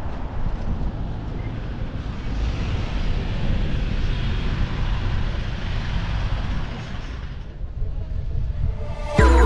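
Street traffic noise with low wind rumble on the microphone while riding a bicycle, a car passing with a rising and fading tyre hiss in the middle. Music starts right at the end.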